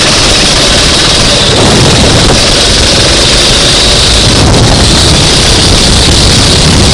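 Racing kart engine running at speed, loud and distorted, with wind noise on the microphone.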